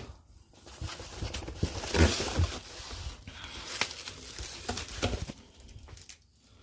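Unpacking car parts from a shipping box: packaging rustling, with scattered clicks and knocks of small parts being handled, a few heavier knocks about two seconds in.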